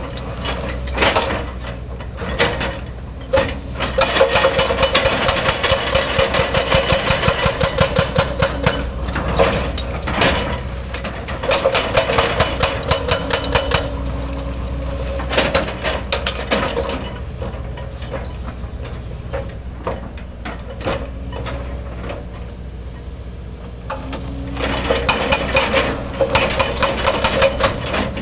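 Excavator-mounted hydraulic breaker hammering rock in bursts of rapid blows, about five a second, with the excavator's diesel engine running steadily between bursts. The hammering stops for several seconds past the middle and resumes near the end.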